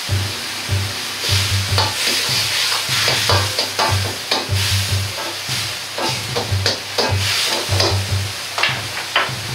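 Wok ladle stirring and scraping through cabbage and ground meat in a wok over a high gas flame, with the food sizzling in its sauce and the metal ladle clattering against the wok in quick, irregular strokes.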